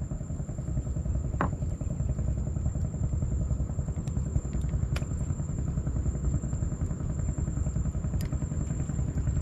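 Small boat engine running steadily with a fast, even low chug.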